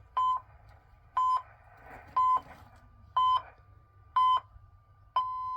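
Radio time signal: six beeps of one pitch, one a second, the sixth held longer, marking the top of the hour before a news bulletin. It plays through a small portable radio's speaker.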